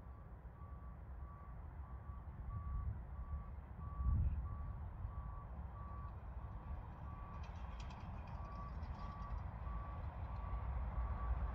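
Distant low jet rumble from an Airbus A350-900's Rolls-Royce Trent XWB engines at take-off thrust, swelling as the airliner lifts off and climbs. A vehicle's reversing alarm beeps steadily over it, about one and a half beeps a second, and there is a brief low thump about four seconds in.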